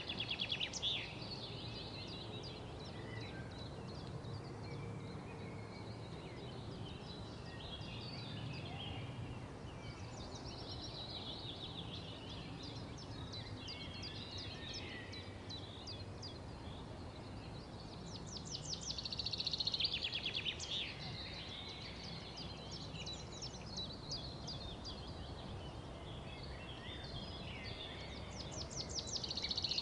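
Birds singing: a steady run of chirps and warbles, with loud, rapid trills near the start, about two-thirds of the way through, and again near the end, over a faint low hum.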